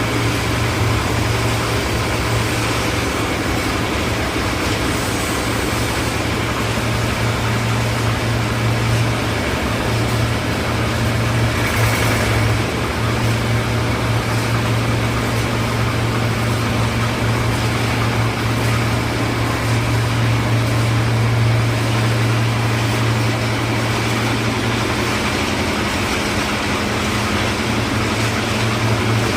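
Concrete mixer's engine running steadily at constant speed, a low even hum with a mechanical rumble over it.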